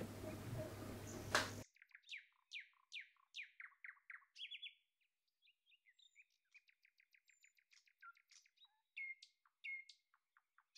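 Birdsong: a string of quick downward-sweeping chirps, about two or three a second, then a fast trill and a few last notes, with no background noise behind them. Before it, faint room tone ends with a click about a second and a half in.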